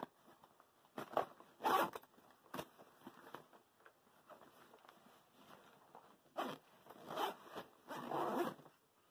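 Zipper on a 600D nylon fishing backpack being pulled in a series of short strokes, in two spells, opening a pocket of the bag.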